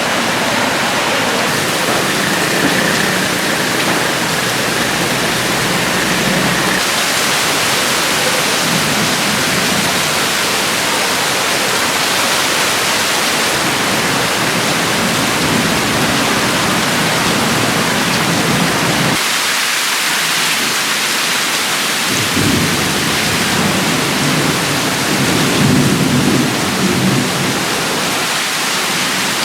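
Loud, steady rush of heavy tropical storm rain and running water. The sound changes abruptly several times, as between separate shots.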